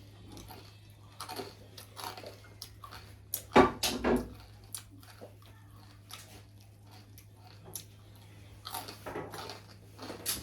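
Someone chewing food close to the microphone, with scattered short crunchy sounds and a louder pair of knocks or clatters about three and a half seconds in.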